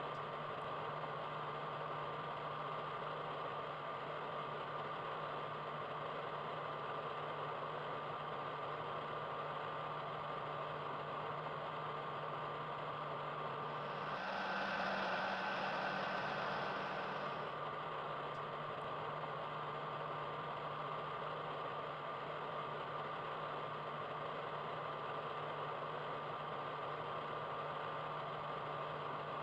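Steady mechanical hum and hiss with a faint constant high tone. About halfway through the low hum drops out and a louder, brighter swell lasts about three seconds before the sound settles back to a steady hiss.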